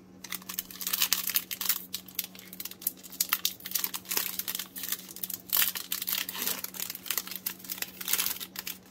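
Foil wrapper of a Donruss Optic football card pack crinkling as it is handled and crumpled, in many small irregular crackles.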